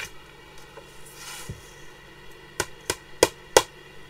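A softcover sketchbook tapped four times against the desk, sharp knocks about a third of a second apart, shaking excess embossing powder off the page.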